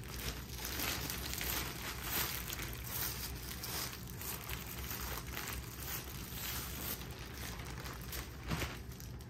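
Clear plastic packaging bag crinkling and rustling in irregular bursts as hands handle it and slide a dust-bagged handbag out of it.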